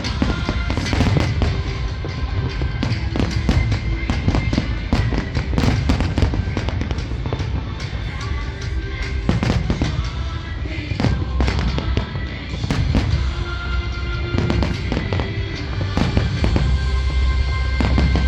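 Aerial fireworks bursting in quick, irregular succession, sharp bangs and crackling, over music with held tones.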